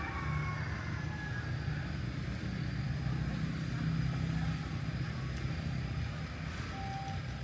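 A steady low rumble of a motor vehicle, a little louder about four seconds in.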